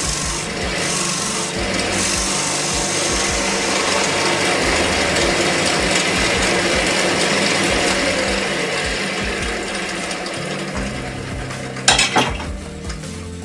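Tool rasping against a square wooden bowl spinning on a woodturning lathe: a steady scraping hiss that eases off after about ten seconds, then two sharp knocks about twelve seconds in.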